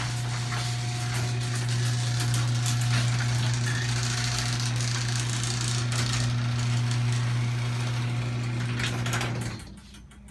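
Liftmaster 1/3 hp chain-drive garage door opener running through a door cycle: a steady motor hum with chain rattle and clicking, stopping about nine and a half seconds in.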